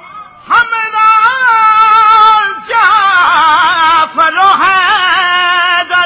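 A man singing a devotional poem in long, held notes with wavering, ornamented runs, amplified through a microphone. The voice comes in about half a second in and pauses briefly midway.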